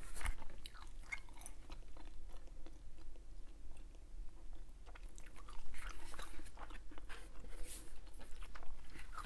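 Hubba Bubba bubble gum being chewed close to a clip-on microphone: a steady run of irregular wet clicks and smacks, a little busier for a couple of seconds past the middle.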